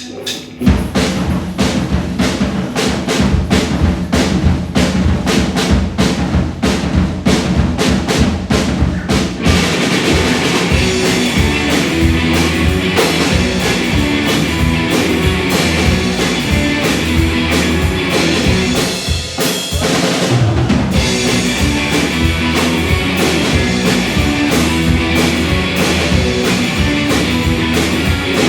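Live rock band (drum kit, bass and two electric guitars) playing an instrumental opening. A steady drum beat with bass comes first, and the full band with guitars comes in about ten seconds in. There is a short drop near the middle, then the full band resumes.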